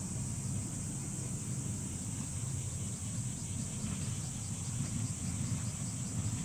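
Summer field ambience: a steady high insect drone with rhythmic chirping coming in about three seconds in, over a low rumble from a distant Ohmi Railway electric train approaching.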